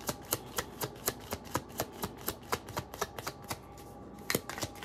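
A tarot deck being shuffled by hand: a quick run of soft card slaps, about four a second. They stop about three and a half seconds in, and a few more come near the end.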